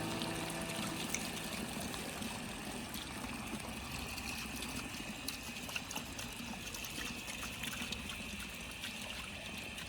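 Water trickling and pouring steadily, with small scattered splashes.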